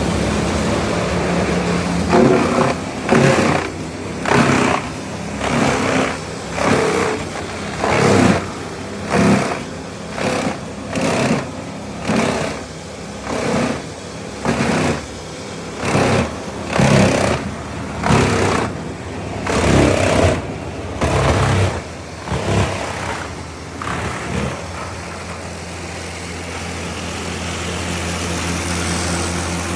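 Vermeer BC1500 brush chipper running, with a regular loud surge about once a second for some twenty seconds, then settling to a steady lower hum.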